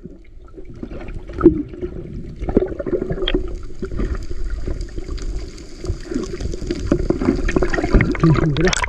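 Water moving around a camera held underwater, with a steady low hum and scattered sharp knocks.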